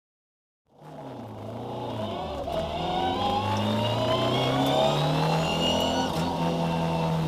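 Brief silence, then a Ford Escort Mk2 historic rally car's engine heard from inside the cabin, fading in and rising in pitch as it accelerates along the stage, levelling off about six seconds in.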